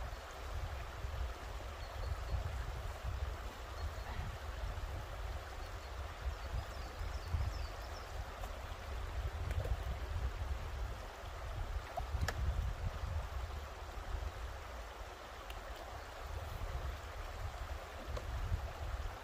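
Shallow river running over stones: a steady rush of water, under a low, uneven rumble. A single faint click about twelve seconds in.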